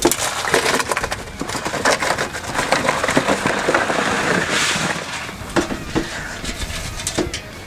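Live crawfish tumbling out of an aluminium strainer basket into a plastic cooler: a dense rattle and clatter of shells against plastic and metal, thinning to scattered clicks over the last couple of seconds.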